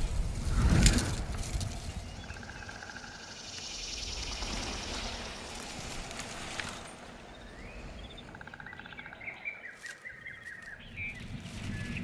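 Nature sound-effects ambience: a heavy thump about a second in, a rushing hiss in the middle, then birds chirping and trilling near the end.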